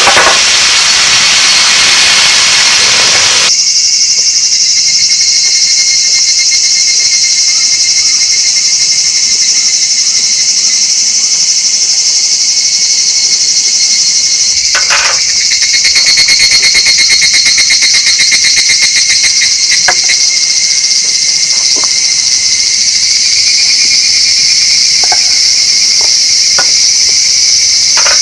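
A dense chorus of crickets and other singing insects: steady, high-pitched chirring in several layers. A broad hiss fills the first few seconds and cuts off suddenly, leaving the insects.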